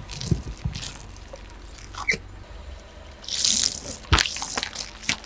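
Car tyre rolling over and squashing water beads and squishy balls: wet pops, squelches and clicks. Near the end the tyre presses down on a plastic bowl of water beads, with a loud crackle followed by a sharp crack.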